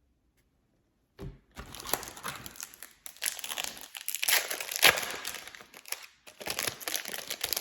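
Foil wrapper of a Topps Chrome trading card pack crinkling and rustling as it is opened and handled, in three stretches after about a second of quiet.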